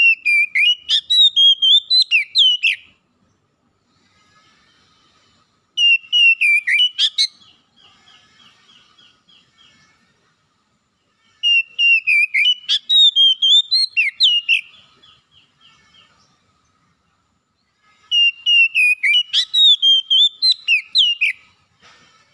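Oriental magpie-robin singing: four loud phrases of rising and falling whistled notes, each two to three seconds long, with soft quick twittering in the gaps between them.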